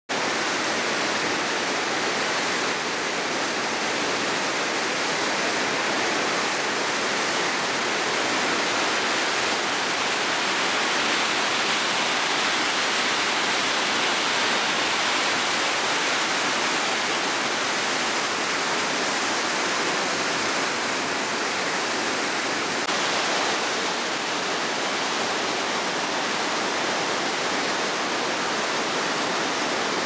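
Steady rush of the Köprüçay River in strong winter flow, white water churning over rapids.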